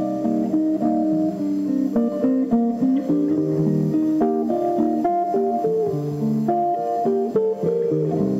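Instrumental guitar music, a continuous run of plucked notes in a flowing melody.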